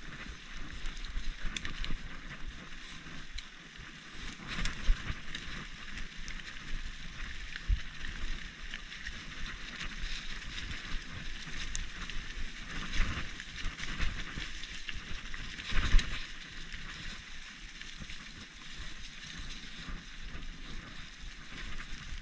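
Mountain bike riding along a wet dirt singletrack: a steady hiss of tyres rolling, with rattles and knocks from the bike over bumps and a louder thump about sixteen seconds in.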